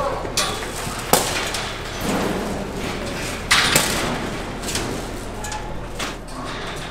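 Steel pipe livestock pens clanging and banging as bison are moved through the pens: one sharp bang about a second in and two more in quick succession past the middle, over the low hum of a big barn.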